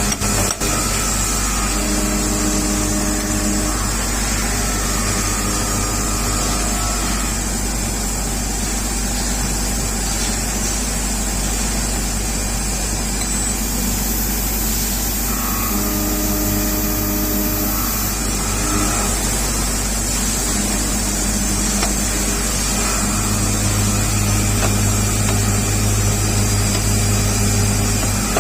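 Workshop machinery running steadily with a constant electrical hum. Several tones come and go, switching on for a few seconds at a time, and a low hum grows stronger late on.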